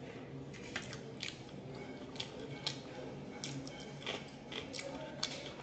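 Close-up mouth sounds of a person eating chicken curry and rice by hand: irregular chewing smacks and clicks.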